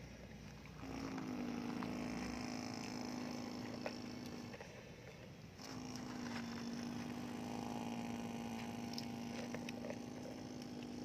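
Remote-control excavator's electric motor whining steadily in two spells of about four and five seconds, with a short pause between, and small clicks scattered through.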